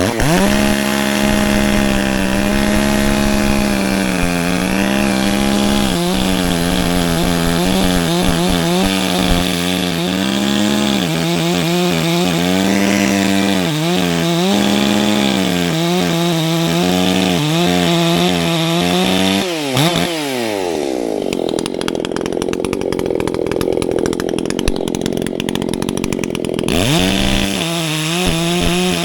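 Chainsaw with a freshly fitted chain cutting into a pine trunk at full speed, its pitch holding steady with small dips under load. About two-thirds of the way through it drops off sharply, then spins back up near the end.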